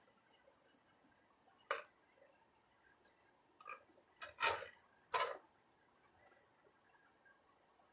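A few scattered metallic knocks and clinks from blacksmithing tools and steel, about four, the loudest a little past the middle, some with a short ring.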